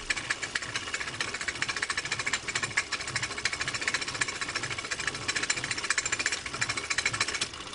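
Film projector running: a steady, rapid mechanical clatter that eases a little near the end.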